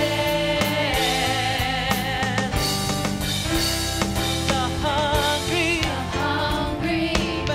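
Live worship band: several women singing together in long held notes with vibrato, over guitar and band accompaniment.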